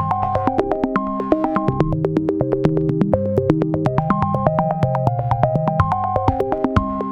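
Background synthesizer music: short stepping keyboard-like notes over a bass line, with a steady quick beat of sharp clicks.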